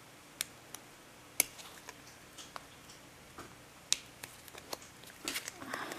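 Small sharp clicks and crackles of a thin clear plastic coin sleeve being worked open between the fingers, spaced out at first and coming closer together near the end.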